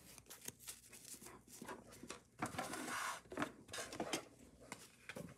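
Paper craft pieces being handled on a desk: scattered soft rustles and small taps, with a longer rustle about two and a half seconds in.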